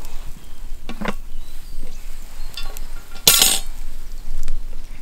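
A cast-iron Dutch oven and hot charcoal briquettes being handled over a campfire. There is a short scrape about a second in, then a louder grating scrape of metal and coals a little past three seconds.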